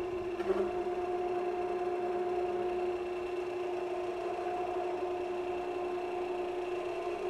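Variable-speed wood lathe running with a steady motor whine while its speed selector lever is stepped up from the slow setting.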